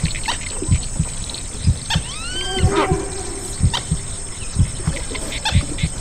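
A heartbeat thumping about once a second, each beat followed by a softer second beat, mixed with humpback whale song: arched, rising-and-falling calls about two seconds in, then a low held moan lasting about a second and a half.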